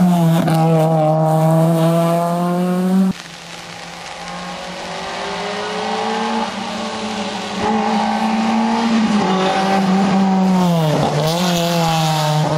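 Rally car engines at full throttle on a tarmac stage. A car passes close and pulls away, then, after an abrupt cut about three seconds in, another car approaches with its engine note rising and passes with a sharp drop in pitch about eleven seconds in.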